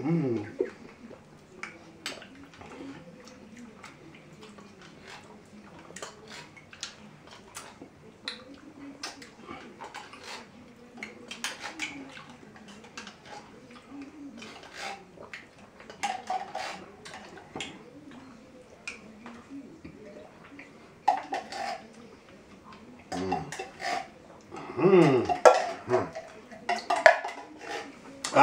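Metal spoons clicking and scraping against the insides of tin cans as creamed corn is eaten straight from them, with eating noises between. Near the end come a few louder wordless vocal noises, one falling in pitch.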